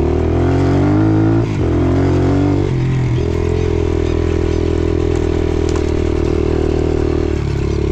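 A motor vehicle's engine running under way: its pitch climbs and drops sharply twice in the first three seconds, then holds steady.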